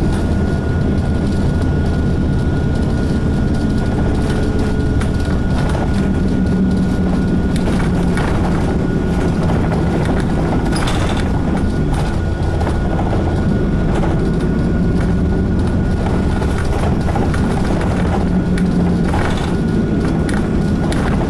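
Cabin running sound of an Isuzu KC-LV380N one-step city bus under way: a steady engine drone over road noise, its note shifting a few times as the bus changes speed, with a thin steady whine and an occasional rattle or knock.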